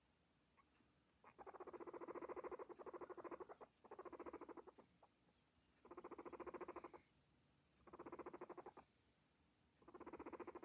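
Guinea pig purring while being stroked: five bouts of a fast, buzzing pulse, each lasting one to two seconds, with short pauses between them.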